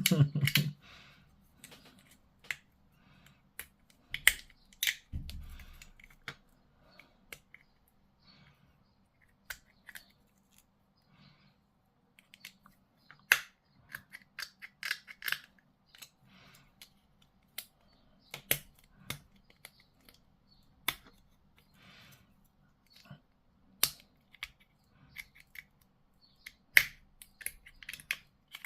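Plastic model kit parts being handled and pushed together, with scattered sharp clicks and snips at irregular intervals and short scraping noises.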